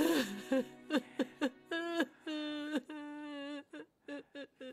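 A woman crying: short broken sobs, then long wavering wails.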